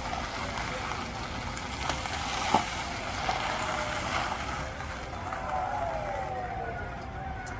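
Steady outdoor background noise, like wind and distant traffic. A sharp click comes about two and a half seconds in, and faint calls that glide down in pitch come near the end.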